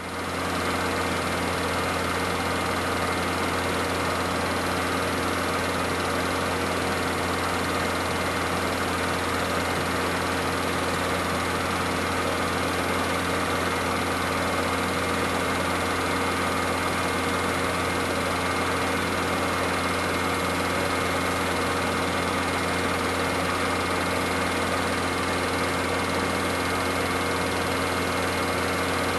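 8mm film projector running: a steady mechanical whir with a constant low hum that does not change.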